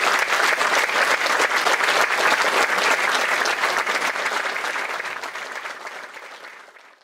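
Audience applauding a stage dance performance: a dense patter of many hands clapping, fading out over the last few seconds.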